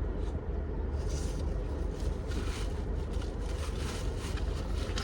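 Chewing of a crunchy taco shell with tempura sushi: faint crisp crackles over a steady low rumble.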